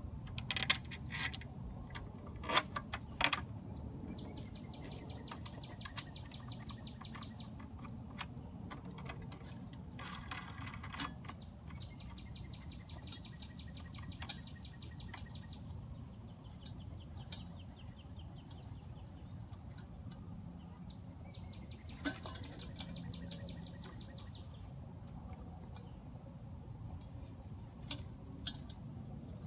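Sharp clicks and knocks from the handle of a Sun Joe electric tiller being fitted and tightened by hand, loudest in the first few seconds. A bird trills three times in the background, each trill about three seconds long.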